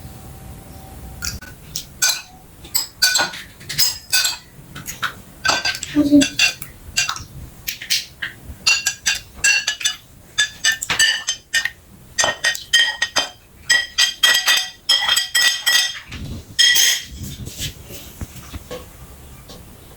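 Metal meat grinder clinking and crunching as hard pieces are worked through it: irregular sharp clicks with a short metallic ring, coming thicker in the second half.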